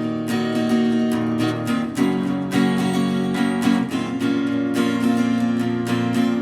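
Acoustic guitar strummed steadily as a song's intro, with the chord changing about two seconds in and again near the four-second mark.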